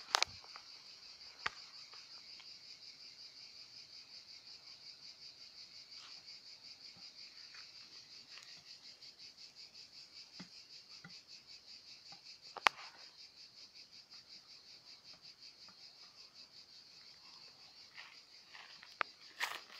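Insects chirping in a steady, rhythmic, high-pitched chorus, with a few sharp clicks over it, the loudest about two-thirds of the way through.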